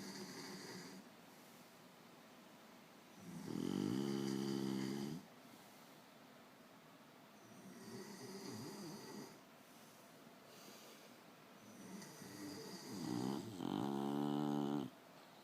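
A sleeping bully-breed dog snoring: two loud, low-pitched snores about ten seconds apart, with softer breaths between them.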